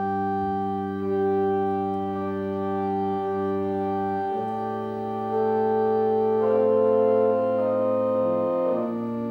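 Organ starting to play abruptly, with slow held chords whose harmony shifts every second or two.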